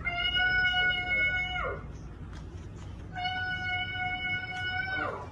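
Two long, drawn-out meows, each held on one steady pitch and then dropping at the end, about a second and a half apart.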